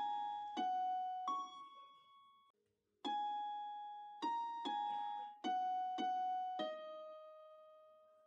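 Background music: a slow melody of single piano notes, each ringing and fading out, with a pause of about a second after the first three notes.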